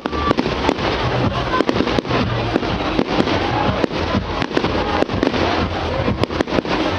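Fireworks going off in rapid, irregular succession: many sharp cracks and bangs over a continuous din.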